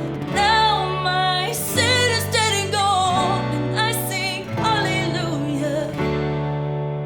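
Worship band playing a contemporary praise song: a singer's voice over guitar and a steady bass.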